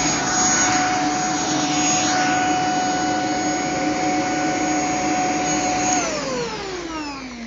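Shark PowerDetect corded stick vacuum running with a steady high whine over a rush of air. About six seconds in, the whine falls steadily in pitch as the motor spins down after being switched off.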